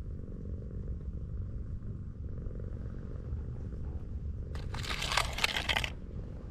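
Tortoiseshell cat purring steadily while being stroked. About four and a half seconds in, a loud rustling crackle lasts for about a second and a half.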